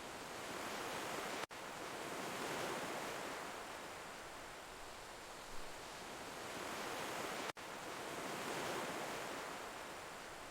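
Ocean waves washing on a shore, a steady hiss that swells and recedes about every six seconds. The sound cuts out for an instant twice.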